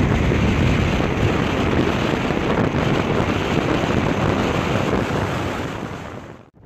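Strong wind buffeting the microphone: a loud, steady, deep rush with no pitched tone, fading out just before the end.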